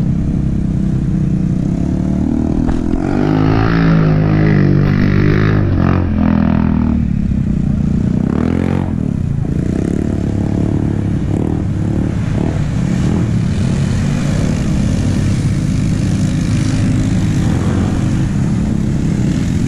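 ATV engines running close by, with a steady low drone underneath; one engine revs up and back down a few seconds in, and again briefly near the middle.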